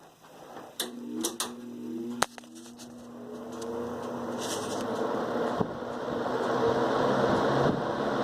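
Vintage 1970s Air King PL20P box fan with a GE motor and plastic blades, switched on at low speed and spinning up. A few sharp clicks and a rising hum come first, then the whoosh of moving air grows steadily louder as the blades reach speed.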